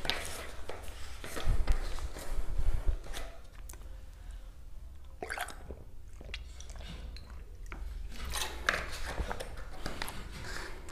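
A man drinking from a plastic bottle: the bottle handled, with swallowing and mouth sounds. Dull low knocks come about one and a half to three seconds in, then scattered short clicks.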